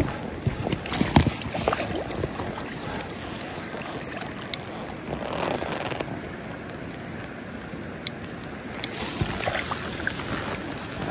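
Water splashing and lapping as a hooked brown trout is played at the surface beside a small inflatable boat and netted, with wind on the microphone. A few sharper splashes or knocks stand out, about a second in, around the middle and near the end.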